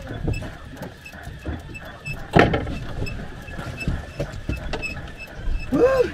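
Wind and engine rumble aboard a small boat at sea, with faint high beeps at about three a second. There is a sharp knock about two seconds in and a short rising-and-falling call near the end.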